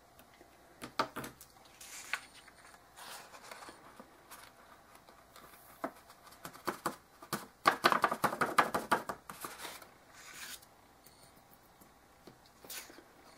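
A sheet of paper rustling and crinkling as it is handled and bent into a chute, then a dense run of fine ticks for about two seconds, starting about three quarters of the way through the first ten seconds, as loose embossing powder slides off the paper into its jar.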